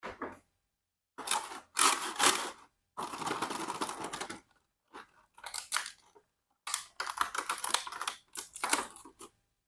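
Toy packaging being handled and opened: irregular noisy bursts of rustling and scraping, several short and one longer stretch about three seconds in, with dead-silent gaps between.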